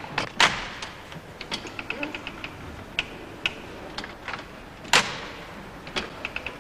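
A model of Thimonnier's hooked-needle chain-stitch sewing machine being worked: its mechanism clicks and ticks irregularly as the needle goes in and out of the cloth, with two loud sharp clacks, one about half a second in and one about five seconds in.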